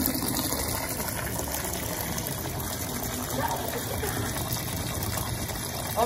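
Steady rush of water in the wash tub of a Hisense twin-tub semi-automatic washing machine loaded with clothes.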